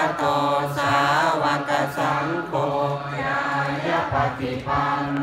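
Thai Buddhist monks and laypeople chanting together in unison, many voices on a steady low pitch, the phrases rising and breaking every second or so.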